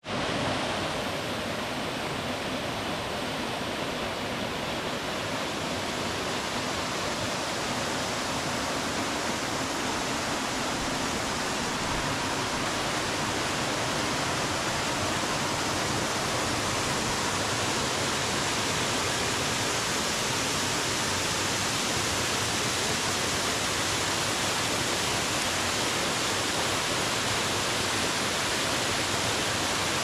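Small waterfall cascading over rock into a pool: a steady, even rush of falling water.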